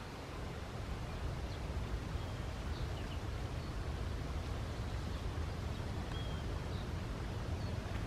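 Steady outdoor background noise with a low rumble, and a few faint, short bird chirps scattered through.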